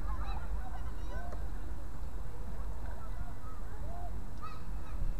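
Geese honking on a pond: many short calls scattered through, over a steady low rumble.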